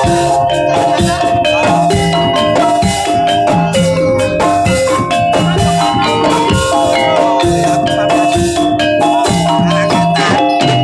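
Javanese jaranan gamelan music played live: struck tuned metal percussion ringing held notes over drums, in a dense, steady rhythm.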